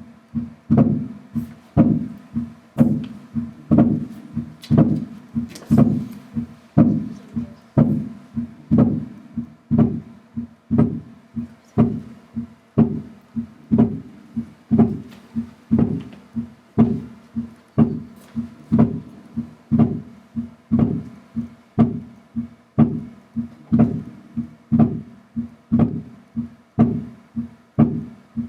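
Heart sounds from a Harvey cardiology patient simulator: a steady rhythm of paired low thuds, S1 then S2, set to demonstrate physiological splitting of the second sound into an aortic and a pulmonary component.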